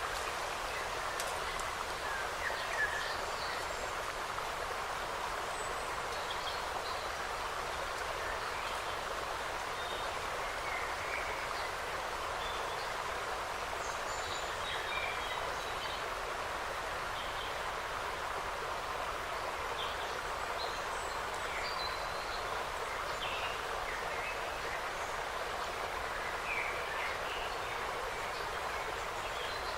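Forest ambience: a steady rushing noise with many short, scattered bird chirps and calls.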